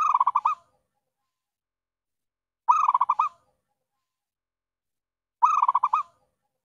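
Zebra dove (perkutut) cooing: the same short phrase, a quick run of about six coos, repeated three times roughly every two and a half seconds, as a lure call.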